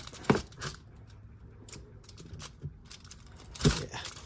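Metal parts of a disassembled Audi 2.0 TFSI two-stage oil pump clicking and clacking as they are handled and worked by hand. There are sharp clicks about a third and two-thirds of a second in, then a run of light ticks, and a louder clack shortly before the end.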